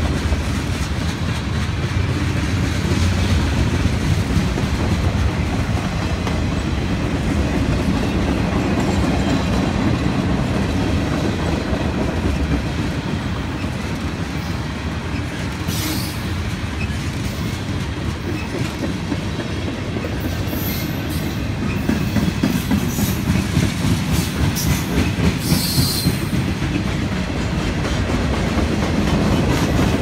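Freight cars of a long mixed freight train rolling past close by: a steady rumble of steel wheels on rail with clickety-clack over the rail joints. Several brief high-pitched wheel squeals come through in the second half.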